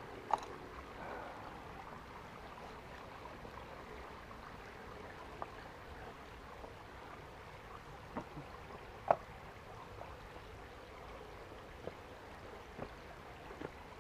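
Small shallow stream trickling steadily, with a scattering of short sharp knocks and clicks over it: a loud one just after the start, the loudest about nine seconds in, and smaller ones now and then.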